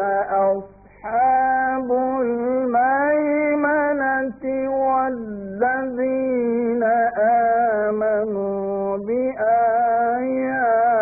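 A man reciting the Quran in the drawn-out melodic tajweed style, holding long phrases whose pitch bends and wavers, with a short breath about a second in and another near the end.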